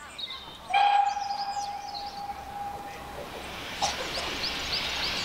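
Steam whistle of GWR Castle Class locomotive 4079 Pendennis Castle, one steady blast of about two and a half seconds. About a second later steam starts hissing from the cylinder drain cocks and grows louder, the locomotive getting ready to move off. Small birds chirp over it.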